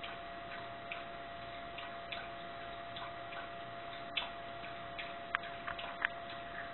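Small dog lapping water from a bowl, a short click at each lap, about two to three a second at an uneven pace. She is drinking thirstily after heavy anxious panting.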